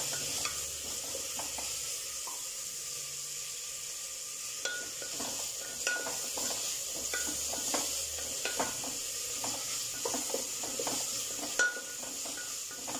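Sliced onions sizzling in hot oil in a pressure cooker, stirred with a spatula that scrapes and knocks against the pot at irregular intervals, with one sharper knock near the end.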